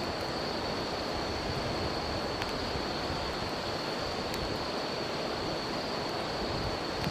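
River water flowing steadily, with insects giving a continuous high-pitched trill over it and a few sharp crackles from a wood campfire.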